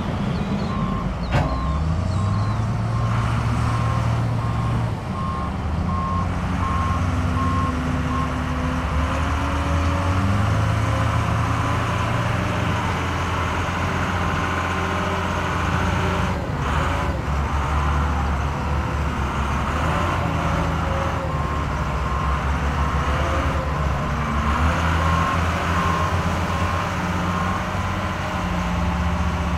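Diesel engines of bulldozers and dump trucks working an earthmoving site, with a reversing alarm beeping at an even rate in the first several seconds and again in the last few seconds.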